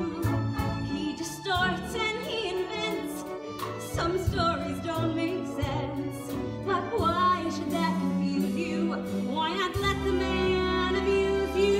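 Musical-theatre song: a singer with strong vibrato over live pit-band accompaniment.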